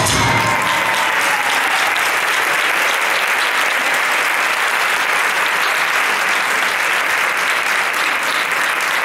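Theatre audience applauding, a dense, steady clapping, with the last of the flamenco music fading away in the first second.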